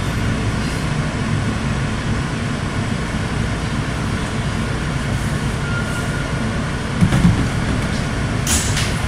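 Steady low rumble inside an R160 subway car standing at a station, with a brief knock about seven seconds in and a short hiss near the end.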